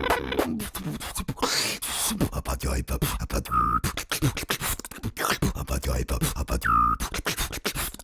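Human beatboxing: a fast run of mouth-made kick, snare and hi-hat sounds, with two short pitched vocal swoops mixed in.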